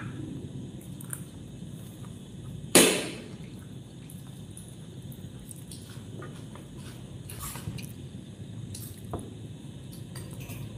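A person eating biryani by hand: quiet chewing and small wet mouth clicks, with one sharp click about three seconds in and fainter clicks later.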